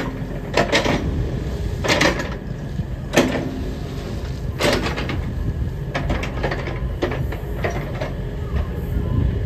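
XCMG XE75DA excavator's diesel engine running with a steady low rumble as the hydraulics raise the boom and bucket. Sharp clacks come through at irregular intervals, roughly every one to two seconds.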